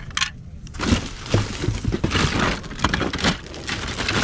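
Hands rummaging through a cardboard box of toys: plastic bags rustling and crinkling, with a run of small knocks and clicks as plastic toy pieces and cardboard are moved about.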